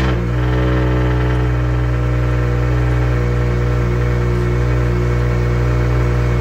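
BMW N54 3.0-litre inline-six idling steadily in an E90. Its revs drop back from the start-up flare in the first moment, and it is running again after a crank hub repair and a replaced timing-sensor fuse.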